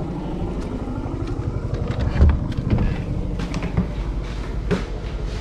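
A motor engine running steadily nearby, with a few short clicks and knocks over it from about two seconds in as a door handle is worked and the door is opened.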